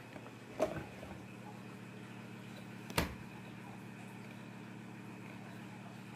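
Steady low hum, with a short knock a little under a second in and a sharp click about three seconds in.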